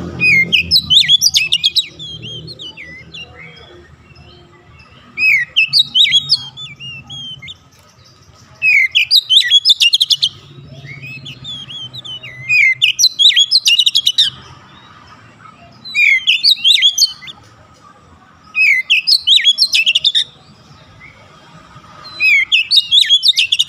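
Oriental magpie-robin (kacer) in full song: seven loud phrases of varied whistles and rapid chattering notes, each one to two seconds long, coming every three to four seconds.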